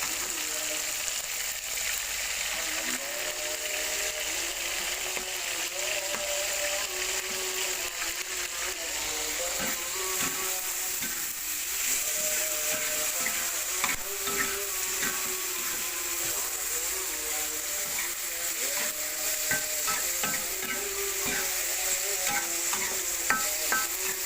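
Fish frying in hot oil in a pan, sizzling steadily, with scattered clicks and scrapes of a utensil stirring or turning it.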